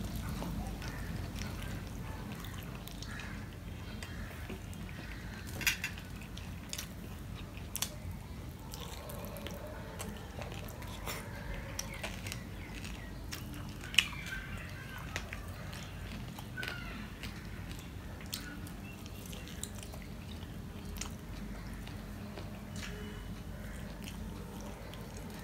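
Hand-eating sounds: soft wet chewing of rice mixed with greens and curry, and fingers mixing food on a steel plate, with scattered soft clicks and a few sharp ticks, the loudest about 14 seconds in. A steady low hum runs underneath.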